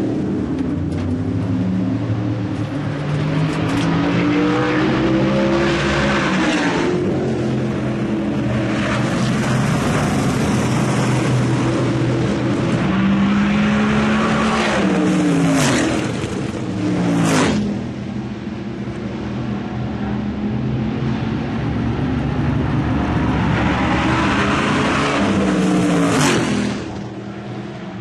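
Supermodified race cars running laps on an oval, their V8 engines giving a steady, loud drone. Cars pass close by several times, each pass a quick rise and fall in pitch; the clearest come about halfway through and near the end.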